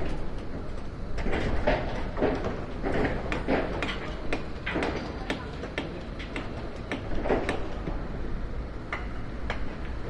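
Construction-site ambience: a steady low rumble with irregular metallic clanks and knocks, several a second through the middle, thinning out near the end.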